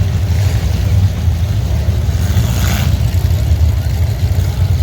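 Demolition derby cars' engines running loud, a deep steady rumble, with a brief noisy burst about two and a half seconds in.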